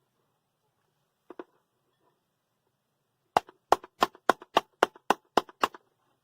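Electric blade coffee grinder being knocked to shake the grounds loose: two faint clicks, then about ten sharp taps in quick succession, roughly four a second.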